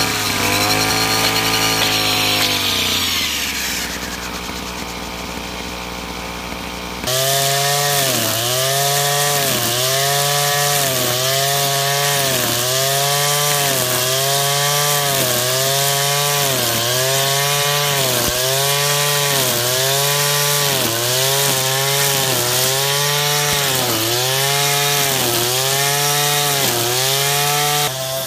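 Backpack brush cutter's small petrol engine running hard, spinning a four-line nylon trimmer head through weeds. It drops back briefly after a few seconds, then from about seven seconds in its pitch rises and falls about once a second.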